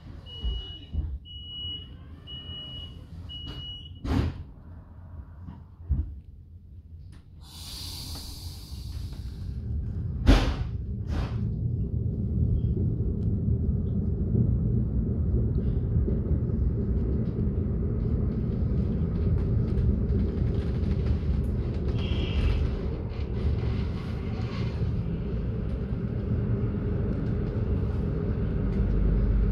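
Inside a Swiss SBB regional train at a stop: the door-closing warning beeps sound a few times, the doors knock shut, air hisses for a couple of seconds and a sharp clunk follows. The train then pulls away, its low running rumble growing and settling into a steady ride.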